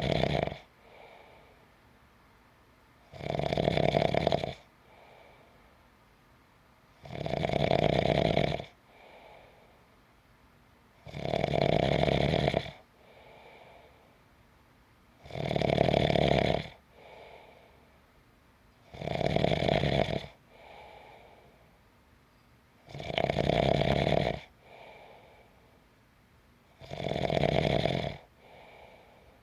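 A person snoring in a slow, regular rhythm: a loud snore about every four seconds, each followed by a fainter breath.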